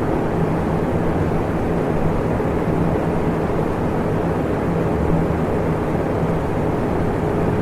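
Electric fan running steadily: an even rushing of air with a low motor hum under it.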